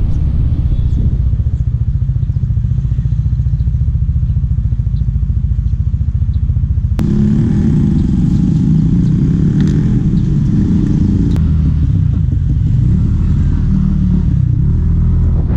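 Motor scooter engine running with wind rumble while riding. About 7 s in the sound changes abruptly to clattering and rustling around the open under-seat storage compartment as items are packed, with a low engine rumble still underneath.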